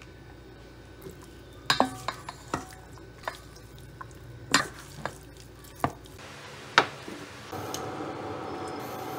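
Wooden spatulas mixing chicken pieces with starch in a stainless steel bowl, the wood knocking against the steel about nine times at an irregular pace. Near the end, a steady soft rush as cooking oil is poured into a frying pan.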